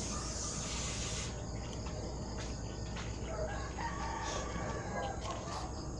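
A rooster crowing in the background. A high steady hiss stops abruptly about a second in.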